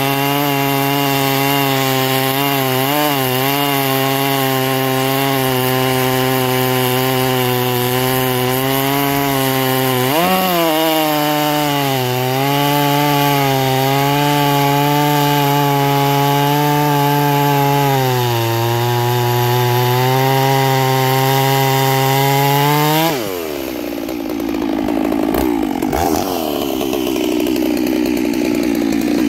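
G466 two-stroke chainsaw at full throttle cutting through a big log, its pitch dipping under load a few times and picking up again. About 23 seconds in the throttle comes off and the revs fall away sharply.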